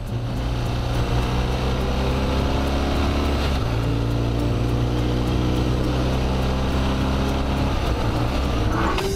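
Motorcycle engine running steadily as the bike rides along, its note shifting about three and a half seconds in and dropping away near the end.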